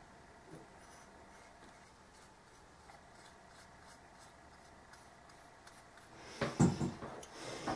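Faint rubbing and small ticks of fingers smearing gasket sealant around the mating surfaces of an outboard water-pump housing, then louder rubbing and handling noise near the end as the housing is handled.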